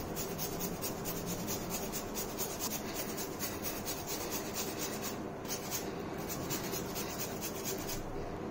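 A raw potato being grated on a small flat stainless-steel hand grater in quick repeated rasping strokes, with a brief pause about five seconds in.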